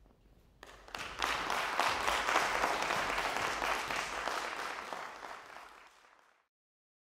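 Audience applauding: the clapping starts about a second in, swells, then fades away and cuts off to silence near the end.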